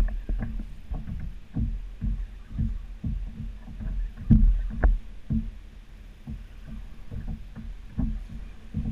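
Choppy water slapping and knocking against a plastic kayak hull in irregular low thumps, two or three a second, over a steady low rumble.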